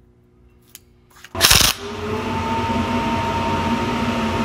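A short, loud crackle of a welding arc about a second and a half in, tacking a steel gusset plate to a steel tube. A steady whir and hiss with a low hum sets in right after it and keeps going.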